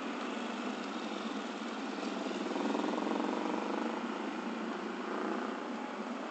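Street traffic: cars and motorcycles passing, a steady hum of engines and tyres that swells a little about two to three seconds in.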